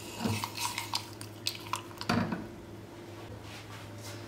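A few light taps and clinks on a glass cezve as pieces of milk chocolate are dropped into the hot milk, most of them in the first two seconds or so. A low steady hum runs underneath.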